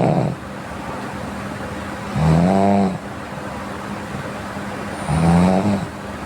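A sleeping person snoring: a pitched snore, each under a second long, about every three seconds. One ends just at the start, and two more follow about 2 and 5 seconds in.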